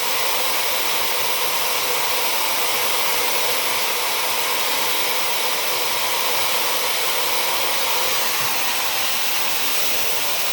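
Dyson hair dryer with a diffuser attachment running steadily, blowing an even rush of air while drying curly hair.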